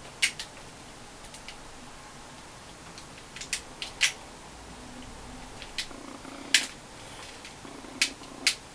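Scattered sharp clicks and snaps of a collectible robot figure's parts being moved and fitted by hand, about ten in all with the loudest near the middle and near the end, over a faint steady room hum.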